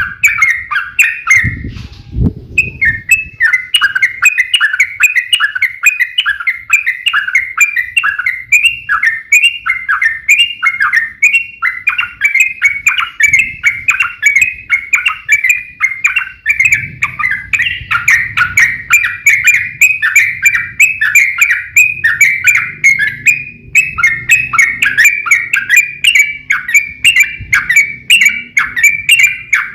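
Yellow-vented bulbuls (trucukan) singing without pause in long, rapid, chattering phrases of bubbly notes, the dense fighting song used to provoke other bulbuls. A brief break with a couple of low thumps comes about two seconds in.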